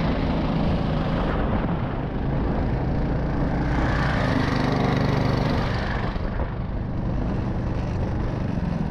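Homemade snowmobile's 20 hp engine running steadily under load through a CVT variator as it ploughs through deep snow, with a hiss of spraying snow in the middle.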